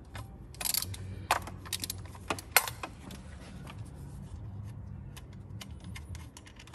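Hand ratchet with a Torx bit undoing a bolt on an engine, with metallic clicks and clinks of the tool. The louder clinks come in the first three seconds, then lighter scattered ticks.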